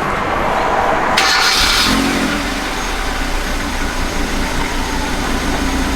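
Car engine being started: a short burst of noise about a second in as it catches, then settling into a steady idle.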